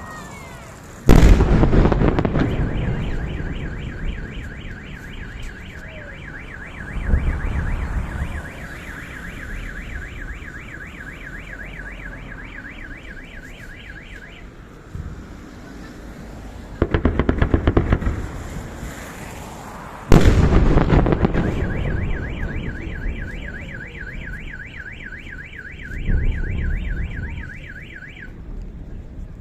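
Fireworks salute going off: five loud bangs several seconds apart, one of them a rapid crackling run, each booming and fading away. Just after the first bang and again after the fourth, a car alarm starts a fast repeating two-tone chirp, running about twelve seconds the first time and about seven the second, set off by the blasts.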